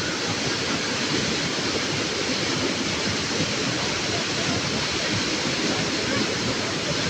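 Steady rushing water, an even unbroken roar with no swells or breaks.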